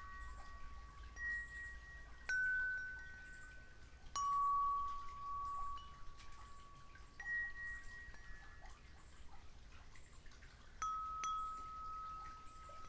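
Wind chimes ringing: about four separate strikes, each a clear metal tone that rings on and slowly fades, with the notes overlapping.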